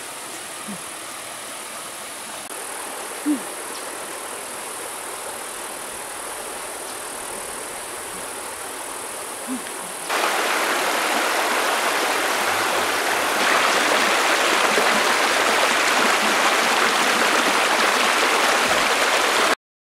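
A rocky stream's water rushing over stones: a steady hiss that steps up louder about halfway through and again a few seconds later, then cuts off suddenly near the end. Two small knocks are heard in the first half.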